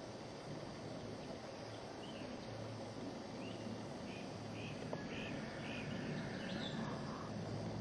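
Outdoor background hiss with a low hum that comes and goes. From about two seconds in until near the end, a small bird gives a run of short, high chirps.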